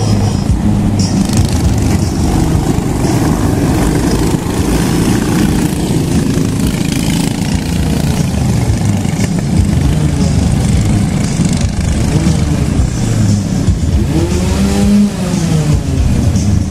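Honda-engined racing karts running on the track, engine pitch rising and falling with the throttle, with a clear rise and fall in pitch about fourteen seconds in.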